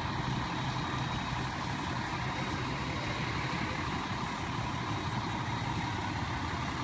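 Fire engine's diesel engine idling steadily, an even low rumble.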